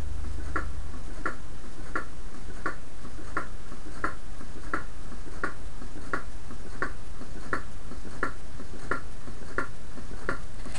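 Homemade water-cooled beer-can Stirling engine running, its beam-and-crank mechanism ticking about one and a half times a second, over a steady low hum.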